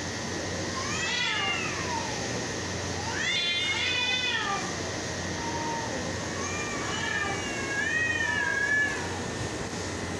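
Two cats yowling at each other in a face-to-face standoff, the threat calls that come before a cat fight. Three long, wavering calls rise and fall in pitch, the third the longest and loudest, over a steady hiss.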